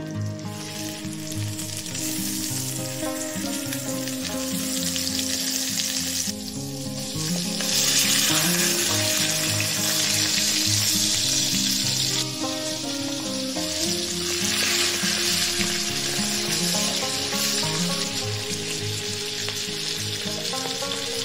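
Food frying and sizzling in a pan, the sizzle swelling and easing off in stretches and loudest around the middle, over background music.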